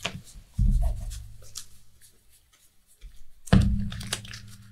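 Sleeved playing cards being handled and slid across cloth playmats, making light scratches and taps. Under them are two low bass notes that start suddenly and fade over about two seconds each.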